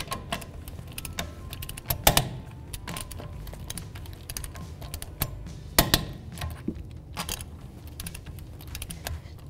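Torque wrench and socket on a car's lug nuts: light ratcheting and metal clicks as the nuts are tightened to 80 ft-lb, with a few sharp clicks standing out, the loudest about two and six seconds in.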